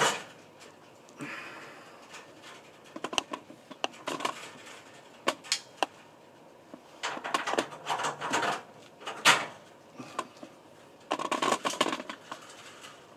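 Hands pulling wires free of a fluorescent light fixture's lampholder connectors: irregular clicks, scrapes and rustling of plastic and wire against the metal fixture housing, with a few sharper clicks.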